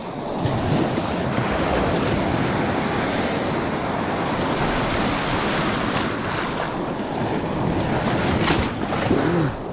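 Small sea waves washing and splashing around a wader's legs in shallow water, with steady wind noise on the microphone.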